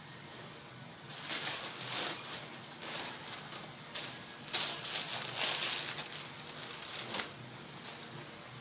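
Rustling and crinkling of a mixed-silk mekhela chador set being picked up and handled, in a string of uneven bursts that starts about a second in and stops near the end.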